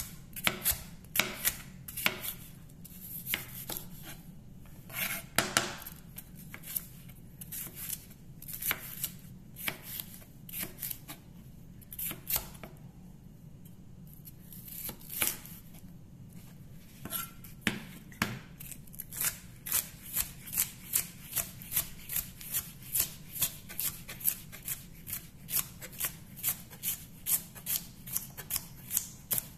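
Chef's knife cutting a green bell pepper on a plastic cutting board, the blade knocking the board at each stroke. The cuts come unevenly at first as the pepper is sliced into strips. About two-thirds of the way in they turn into quick, steady dicing chops, about two a second.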